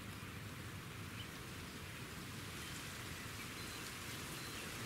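Faint, steady outdoor background noise: an even hiss with a low rumble of wind on the microphone, and no shot fired.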